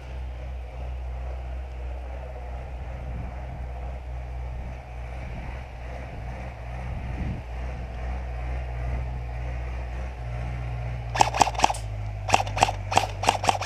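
A steady low rumble, then, from about eleven seconds in, rapid bursts of airsoft gun fire: quick runs of sharp cracks several times a second.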